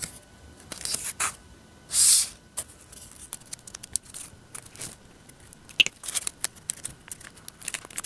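Origami paper being handled and folded: scattered crinkles, rustles and small clicks of the paper, with one louder rustle about two seconds in.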